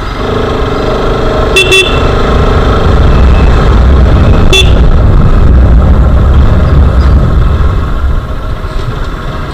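Motorcycle riding along a road, heard from a camera mounted on the bike: a steady low rumble of engine and wind. A vehicle horn gives two quick toots about one and a half seconds in and one more toot about four and a half seconds in.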